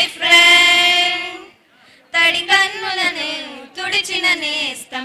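Group of young women singing unaccompanied: a held note fades out about a second and a half in, then after a short pause the group goes on with a wavering sung phrase.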